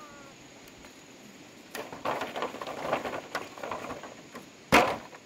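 Rustling and crackling for a few seconds, then a single sharp knock near the end.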